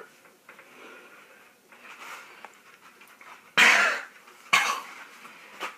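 A man breathing hard, then coughing hard twice, about a second apart, past the middle: a coughing fit from a mouthful of dry ground cinnamon irritating his throat.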